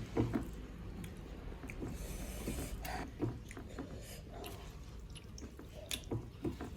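A person eating up close: soft chewing with small mouth clicks and smacks.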